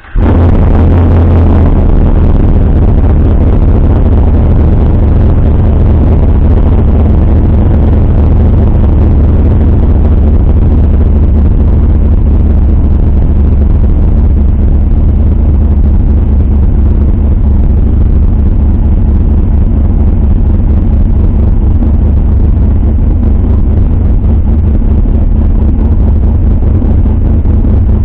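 Cammed Chevrolet Silverado's engine idling loudly just after catching on a cold start, the sound carried by its exhaust.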